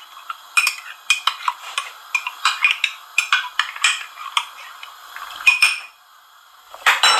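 Metal spoon clinking and scraping as it stirs, first in a glass bowl of cornflour slurry, then in a saucepan of boiling milk, at two or three strokes a second. There is a brief lull near the end, then one louder knock.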